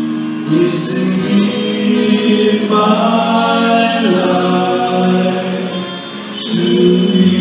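Voices singing a slow hymn in harmony through microphones, holding long notes in several parts.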